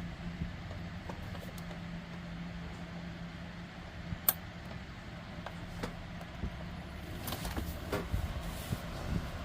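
Scattered small clicks and taps from work on a safe's combination lock, with a sharp click about four seconds in and a run of small ones near the end, over a steady low hum.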